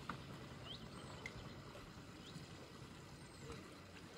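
Faint outdoor noise of wind and water, with a few brief high chirps in the first second and a half.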